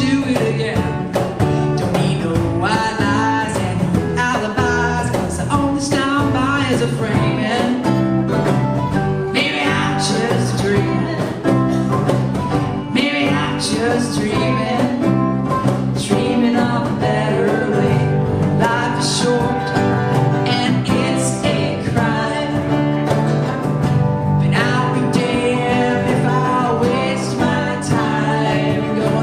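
A small acoustic band plays live: a woman sings lead over her strummed acoustic guitar, with mandolin, bass guitar and a harmony singer.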